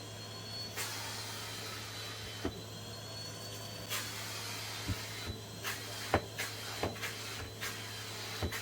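Vacuum cleaner running, its noise swelling and dropping as it is pushed back and forth over the floor, with a thin steady motor whine. From about halfway through, a series of sharp clicks and knocks.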